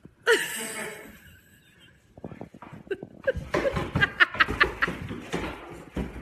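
Human laughter: a sudden loud outburst about a third of a second in, then a run of quick chuckles in the second half.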